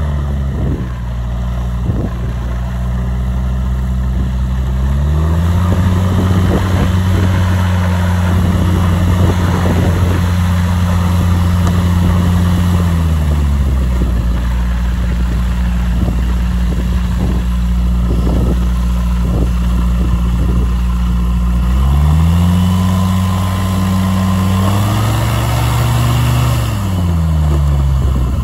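Light floatplane's engine and propeller running with the throttle being worked. The pitch drops just at the start, rises about five seconds in and holds for several seconds, drops back around thirteen seconds, then rises again around twenty-two seconds, dips briefly and falls away near the end.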